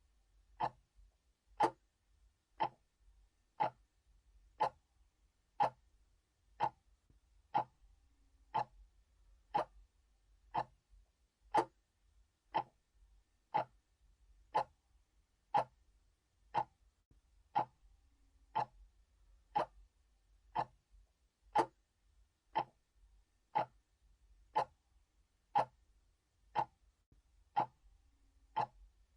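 Analog clock ticking steadily, one sharp tick a second.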